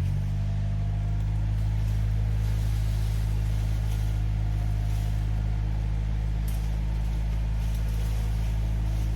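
Gehl compact loader's engine running steadily at a constant speed.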